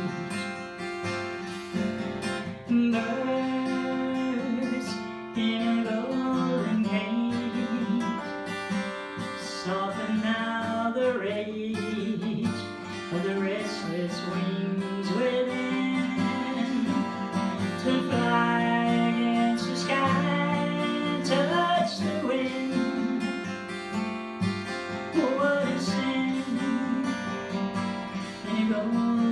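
Acoustic guitar strummed and picked in the accompaniment of a slow song, with a woman's voice singing at times over it.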